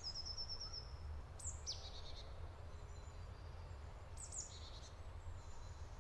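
Small songbirds calling with short, high chirps and quick trills a handful of times, faint, over a steady low rumble.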